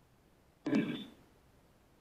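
A short, garbled voice-like fragment, about half a second long, from a Necrophonic ghost-box app played through a small speaker, over a faint steady hiss.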